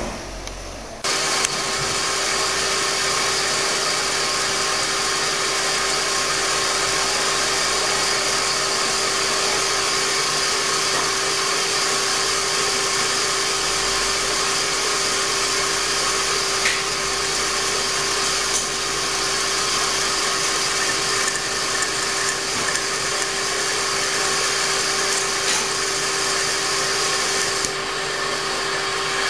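Metal lathe starting about a second in and running steadily, with a steady hum and a hiss, as a boring bar cuts into the flange end of an Abarth A112 crankshaft, boring the bore for a pilot bushing.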